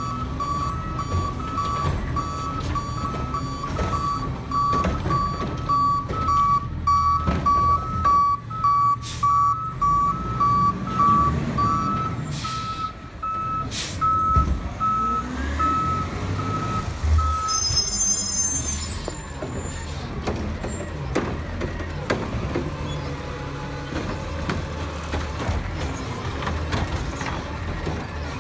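CNG garbage truck reversing, its backup alarms beeping steadily at two pitches over the engine's running; one alarm stops about 12 seconds in and the other about 17 seconds in. Two short air hisses come around 13 and 14 seconds in, and the engine keeps running as the truck pulls forward.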